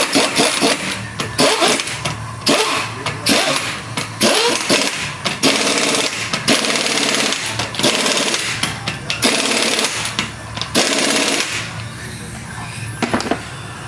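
Pneumatic impact wrench running in a series of short bursts, each about a second long, with sharp clicks between them.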